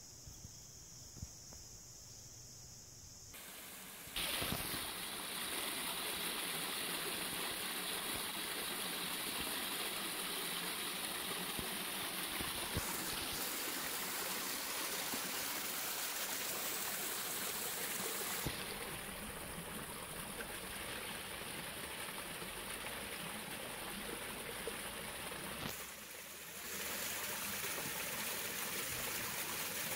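Small stream running through a narrow rock channel: a steady rush and trickle of water that starts about four seconds in, after a quieter opening.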